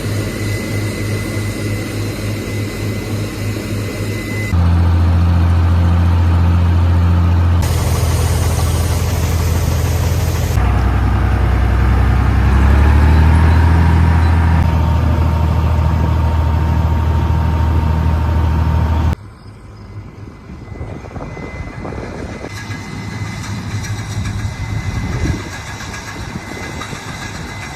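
Heavy farm machinery engines running, in several clips cut together: the sound changes abruptly about four and a half, seven and a half, ten and a half and nineteen seconds in, and is loudest through the middle stretch.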